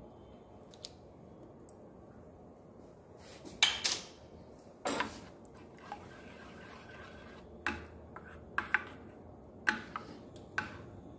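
A spoon knocking and scraping against the sides of a bowl while thick tomato-chilli chutney is stirred. The sound comes as irregular clinks and knocks, the loudest about three and a half seconds in.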